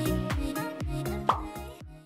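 Background music with a steady dance beat and deep bass-drum hits that drop in pitch, fading out near the end.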